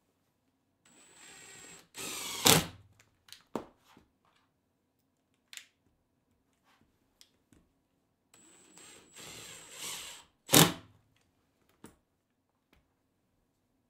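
Power driver driving two wood screws into plywood: each time a motor whine for a second or two, ending in a sharp, loud snap as the screw seats. Small clicks of handling between the two.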